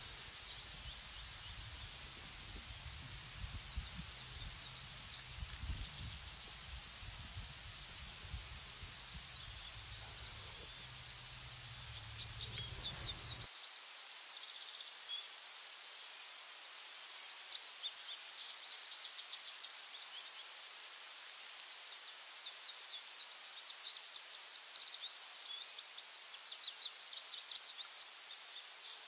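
Outdoor nature ambience of insects and small birds: a steady high-pitched buzz under scattered rapid high chirps and trills. A low rumble like wind on the microphone runs underneath until it cuts off abruptly about halfway through.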